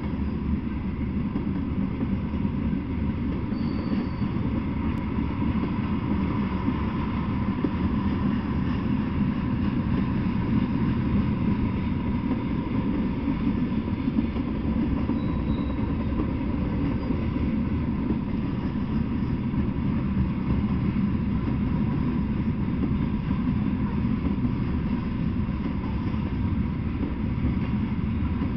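Freight train of covered hopper cars rolling past at a steady pace: a continuous low rumble of the cars' wheels on the rails.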